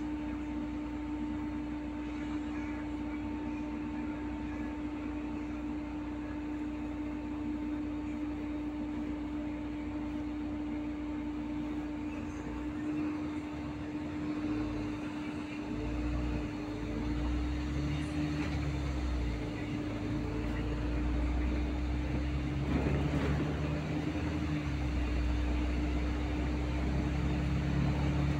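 City bus cabin noise while riding: engine and road noise under a steady hum, with the engine note shifting and getting a little louder in the second half.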